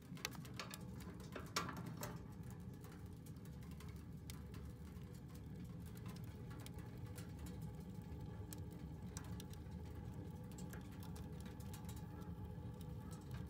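Wood fire burning inside a small handmade steel camping stove: scattered crackles and pops over a faint, steady low rumble, with a few louder clicks in the first two seconds.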